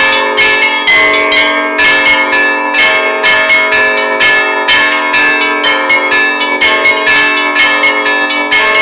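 Russian Orthodox church bells rung for a feast day: smaller bells struck rapidly, several strikes a second, in a repeating pattern over the steady hum of a large bell.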